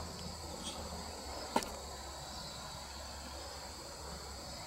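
Steady high-pitched chorus of insects, with a low steady hum underneath and a single sharp click about a second and a half in.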